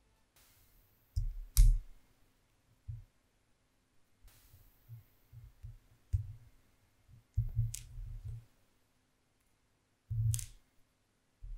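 Small wooden popsicle-stick Beyblade parts clicking and knocking as they are handled and pulled apart. There are scattered soft knocks and three sharp clicks, about one and a half, eight and ten seconds in.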